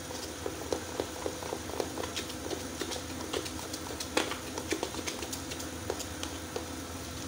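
A spoon stirring cocoa powder into soft cream in a plastic bowl, with irregular light clicks and scrapes of the spoon against the bowl over a steady low hum.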